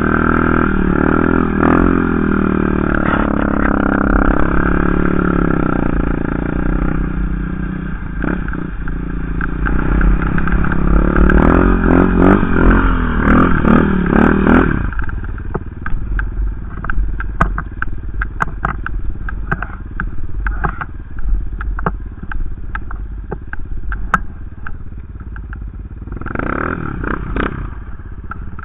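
Yamaha Raptor 250 ATV's single-cylinder four-stroke engine revving hard and varying in pitch while ploughing through snow. About halfway through it suddenly drops to quieter low-throttle running with scattered clicks and knocks, then revs briefly once near the end.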